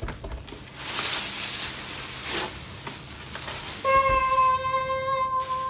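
Rustling of the packaging as the espresso machine is unwrapped, then a steady held note about four seconds in that runs on to the end.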